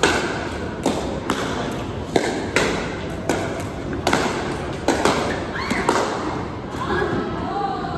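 Pickleball paddles hitting a hollow plastic ball, sharp irregular pops about twice a second.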